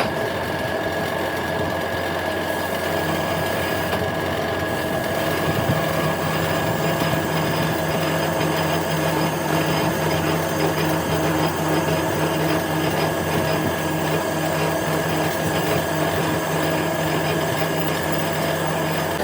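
A power tool or workshop machine running steadily at a constant speed, with an even hum and a high steady tone.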